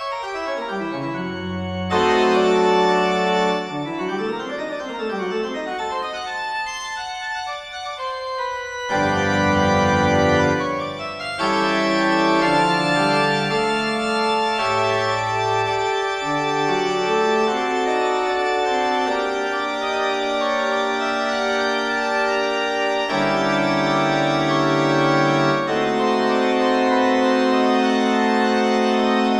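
Organ music: sweeping glides down and then up in pitch over the first few seconds, then long held chords that shift every few seconds.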